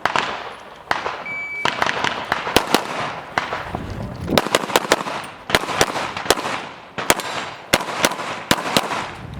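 Pistol shots at an IPSC handgun match: rapid, irregular strings of shots, some loud and close with ringing echo, others fainter. A short high beep sounds about a second and a half in.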